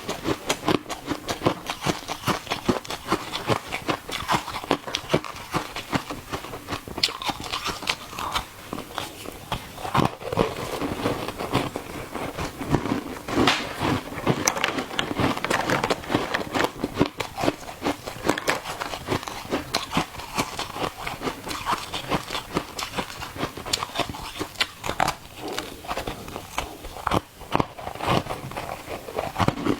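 Ice being bitten and chewed: continuous crunching and crackling, a dense run of irregular crisp cracks with no real pauses.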